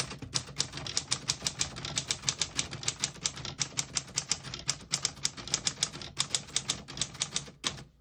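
A 1936 Corona Standard flat-top portable typewriter being typed on at a steady pace, its type bars striking about six or seven times a second, stopping shortly before the end. The keys type cleanly, none skipping or sticking.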